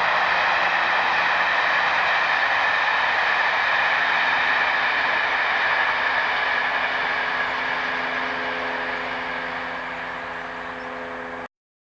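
Diesel passenger train running past at a distance: a steady rush of wheel and engine noise that slowly fades as it draws away, then cuts off suddenly near the end.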